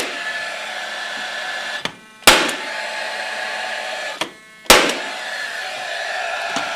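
Cordless brad nailer driving brad nails through a tin backsplash panel: two sharp shots about two and a half seconds apart, each followed by about two seconds of steady motor whine that then stops.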